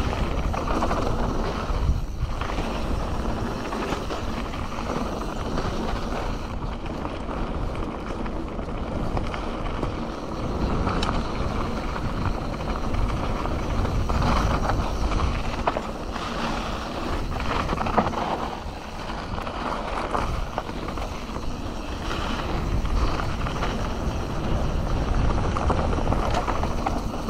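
Wind rushing over the action camera's microphone while a Canyon Torque CF 9 mountain bike rolls fast down a dirt flow trail, its tyres and frame rattling over the bumps. A sharper knock comes about 18 seconds in.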